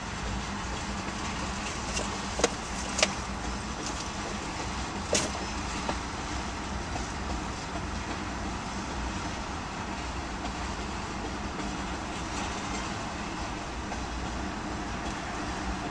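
Providence and Worcester freight train of loaded ethanol tank cars rolling past: a steady rumble of wheels on rail, with a few sharp clacks between about two and five seconds in.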